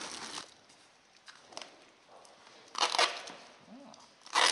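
Two short ripping sounds about a second and a half apart, the second louder, made while a worn hiking boot is being patched up by hand.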